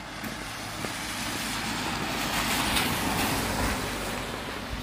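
A van drives past on a wet road, its tyres hissing on the wet asphalt. The sound grows louder to a peak about three seconds in, then fades.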